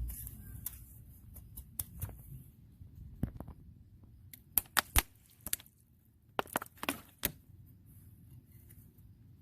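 Handling noise: a scatter of sharp clicks and knocks in two clusters, near the middle and a little after, as small hard objects are picked up, set down and tapped.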